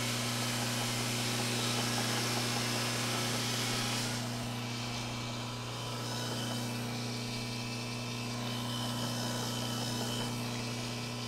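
Belt grinder running with a small contact wheel, its motor giving a steady hum under the hiss of a 400-grit belt sanding the edge of a knife handle. The hiss eases a little about four seconds in.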